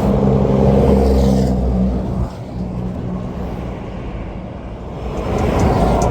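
Lorry passing close on a motorway, its engine drone and tyre noise loud for about two seconds and then dropping away sharply, leaving lighter traffic noise that builds again near the end as the next vehicle approaches.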